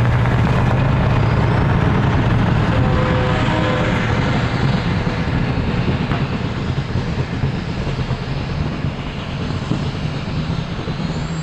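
Diesel truck engine running loud and steady, with a faint high whistle that slowly rises in pitch. The level eases off a little after about four seconds.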